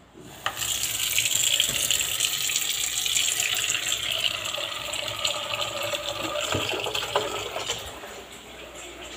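Kitchen tap turned on about half a second in, running steadily into a plastic bowl in a stainless steel sink with a splashing hiss; quieter from about eight seconds in.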